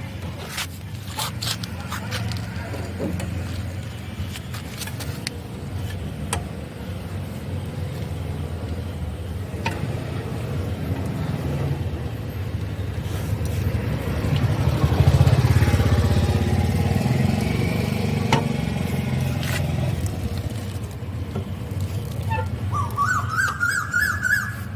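Car jack being worked to lift the car, with intermittent clicks and scraping over a steady rumble of road traffic; a vehicle passes, louder, about two-thirds of the way through.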